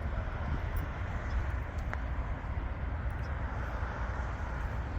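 Steady low outdoor rumble with a fainter hiss above it, no distinct event apart from a faint tick about two seconds in.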